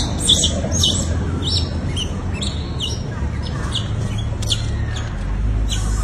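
Short, high chirping calls repeated two or three times a second, each a quick falling squeak, over a steady low rumble.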